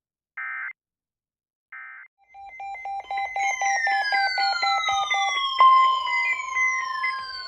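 Emergency Alert System tones: two short screechy digital data bursts, then a fast two-pitch beeping with repeated falling whistle-like sweeps laid over it, an alert signal that opens the next warning.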